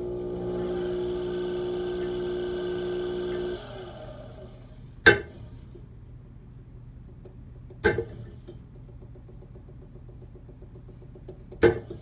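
Brent CXCK pottery wheel motor humming steadily, then the hum drops away about three and a half seconds in. As the wheel turns slowly, three sharp knocks follow, a few seconds apart. This is the jerky jumping at the lowest speed that the owner takes for a problem in the motor.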